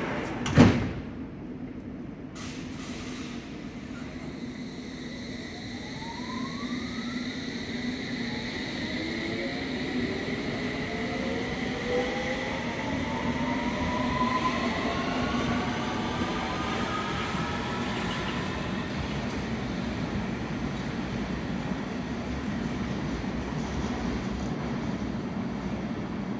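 London Underground S stock train pulling away from the platform. Its traction motors whine in several tones that climb steadily in pitch as it accelerates, over a steady low hum. There is a sharp knock about half a second in.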